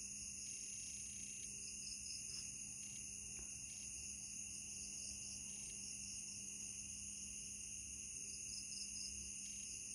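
Crickets trilling steadily in the night, several high continuous trills layered together, with a few short chirps about two seconds in and again near the end.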